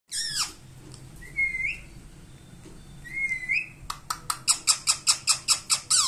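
Indian ringneck parakeet calling: a short falling squawk, then two rising whistles, then a fast run of about ten sharp calls at roughly five a second in the second half.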